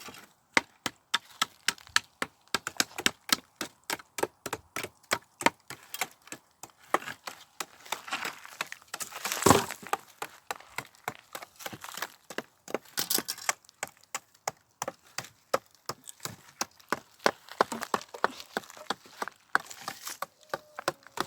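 Dry wheat stalks being harvested by hand: a rapid, irregular run of sharp crackling snaps, several a second, with a louder rustling burst about halfway through.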